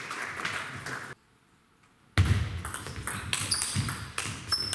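Table tennis rally: the ball clicks in quick succession off the bats and the table, with short high shoe squeaks on the hall floor. The sound cuts out to silence for about a second a little after the start.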